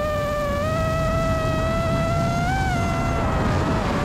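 FPV quadcopter's four iFlight Cyber Xing 2207.5 1777kv brushless motors whining at a steady pitch in flight, with a brief rise in pitch a little past halfway. Wind and prop wash rush over the onboard camera's microphone.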